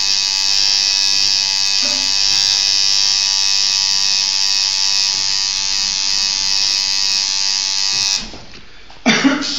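Coil tattoo machine buzzing steadily as it needles skin, a high, even whine. It cuts off about eight seconds in; a loud bump follows a second later and the buzzing starts again near the end.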